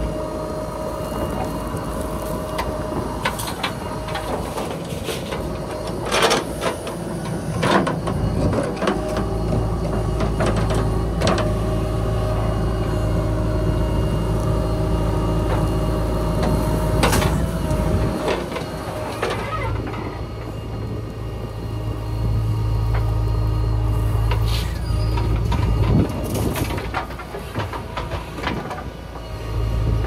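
JCB 3DX backhoe loader's diesel engine running steadily under load while the backhoe digs murum and swings it to the truck. Several sharp clatters come through, the loudest around the middle, as soil and stones drop from the bucket into the tipper truck's steel body.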